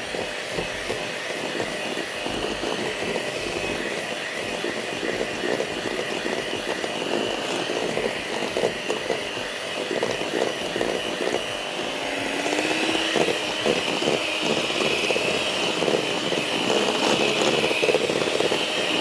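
Electric mixer motor running steadily while beating egg yolks with sugar for a custard, its pitch stepping up slightly past the middle.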